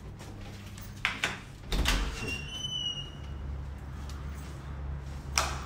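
Hotel room door being handled and shut: a few sharp latch clicks and a thud, followed by a short high chirp and a steady low hum, with another click near the end.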